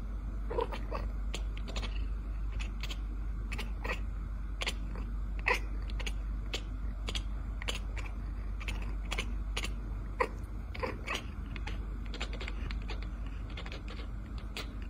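Cat chewing something crunchy: an irregular run of sharp crunches, several a second.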